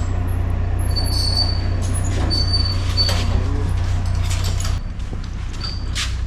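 A steady low machine hum that drops in level a little under five seconds in, with scattered clicks and a few short high squeaks over it.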